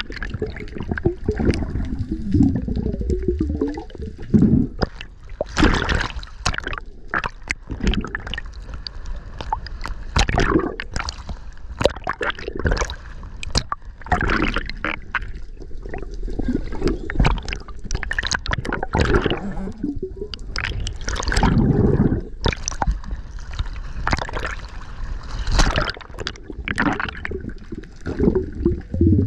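Water gurgling and sloshing against a camera underwater as the diver moves, with frequent irregular swishes and clicks over a low rumble.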